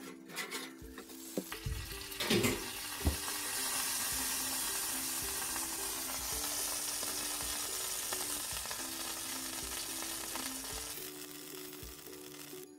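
Oven-baked chicken pieces sizzling in their hot baking dish just out of the oven: a steady hiss that comes up about two seconds in and fades near the end. Before it, a few knocks as the dish is set down on a cork trivet.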